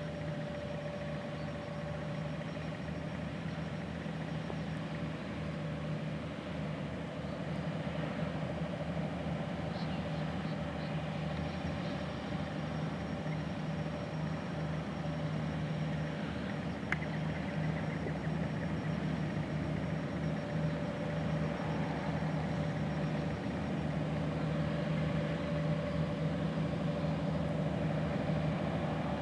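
New Holland T9.450 four-wheel-drive tractor's diesel engine running steadily under load while pulling an anhydrous ammonia side-dressing toolbar. It grows slightly louder as the tractor approaches.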